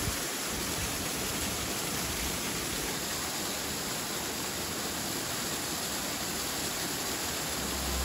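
Waterfall rushing steadily, an even hiss without breaks.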